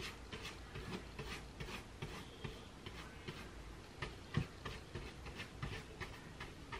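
Paintbrush scratching across a cardboard roof in quick back-and-forth strokes, about three faint strokes a second, as white primer is worked into the bare cardboard.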